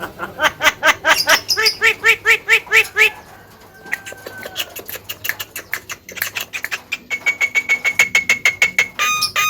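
Javan myna (jalak kebo) calling: a run of loud, harsh repeated notes, about four a second, then after a short lull a faster chattering run of short notes, some on one steady pitch.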